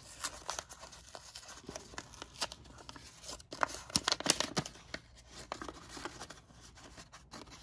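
Paper parts envelope of carburetor gaskets being torn open and handled, giving short paper crackles and tears, with a cluster of sharper ones about halfway through.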